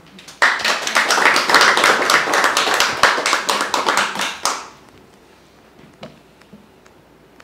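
Audience applauding, starting abruptly about half a second in and dying away after about four seconds.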